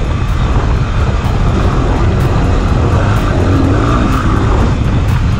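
Yamaha WR250R dirt bike's single-cylinder four-stroke engine running steadily at speed over sandy track, heavily buffeted by wind rush on the microphone.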